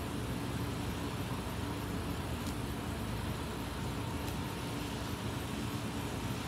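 Air conditioner running, a steady hum under an even rush of air.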